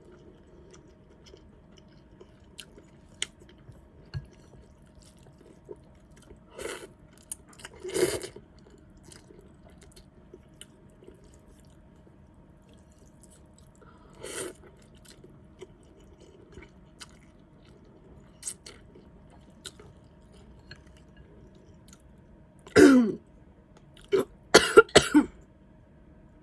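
Close-miked eating of noodle soup: soft chewing and small mouth clicks, with a few short, louder mouth noises, the loudest near the end.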